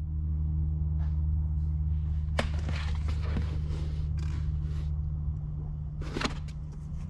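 A hard plastic battery case being slid off a lithium cell pack, knocking and scraping: a sharp knock about two and a half seconds in, a couple of seconds of scraping and rustling, then another knock about six seconds in. A steady low hum lies underneath.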